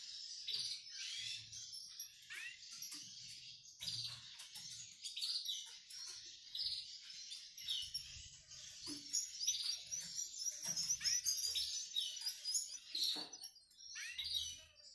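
Small caged finches twittering: rapid high chirps and short rising and falling notes, coming in clusters and thickest in the second half.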